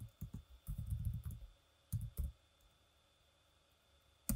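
Computer keyboard typing: a quick run of keystrokes over the first second and a half, two more about two seconds in, then a pause and one louder keystroke near the end, the Enter key.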